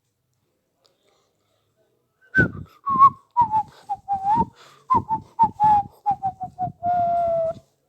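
A whistled tune: about a dozen short notes, falling in pitch overall, ending on a longer held note.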